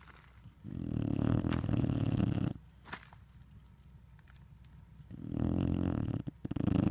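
Pit bull snoring in its sleep: two long, low snores, each about two seconds long, the second one briefly breaking up near its end.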